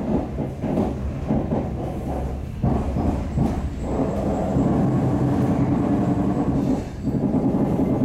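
EP2D electric multiple unit running along the line: a steady rumble of the running train with irregular knocks.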